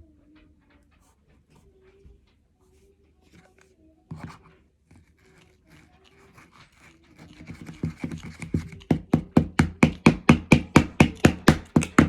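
Hands slapping in a fast, even rhythm, about three times a second. It starts faintly about seven seconds in and soon grows loud.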